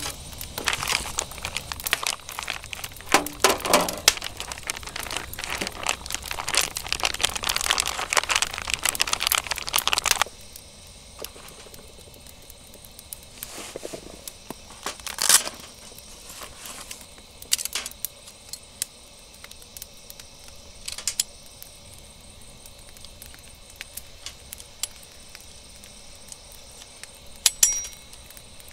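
Plastic meat packaging crinkling and crackling as it is handled and opened, dense and continuous for about ten seconds. It then stops suddenly, and a few sharp clicks and knocks follow as a nylon tool case and folding metal barbecue utensils are handled on a metal mesh table, the loudest about halfway through and a quick pair near the end.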